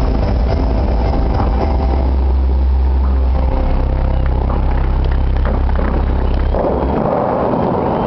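Dubai Fountain's water jets rushing loudly, with a heavy steady low rumble that stops about seven seconds in and gives way to a lighter, hissing rush of water.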